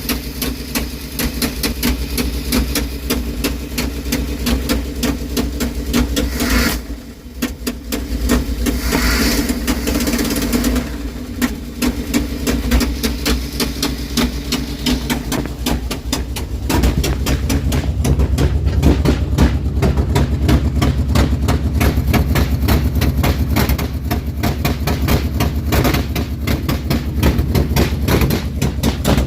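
Car engine running with a rapid ticking over its steady note; it grows louder and deeper about seventeen seconds in. The owner wonders whether the noise comes from the exhaust header, refitted without a new gasket, which is typical of an exhaust leak at the header.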